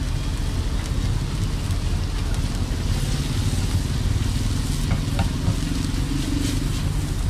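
Egg mixture sizzling on a large flat iron griddle as a metal spatula stirs and scrapes it, with a few light taps of the spatula. A steady low rumble runs underneath.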